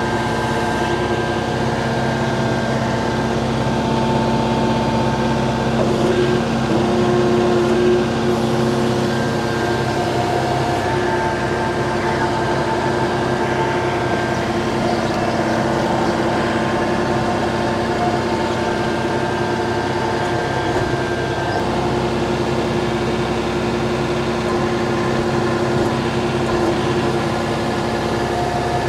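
John Deere 4066R compact tractor's diesel engine running steadily while the tractor drives and works its loader grapple, with a steady higher whine over the engine note.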